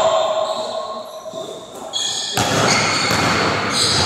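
Basketball bouncing on a hardwood gym floor, echoing in the large hall, with a sharp impact about two and a half seconds in.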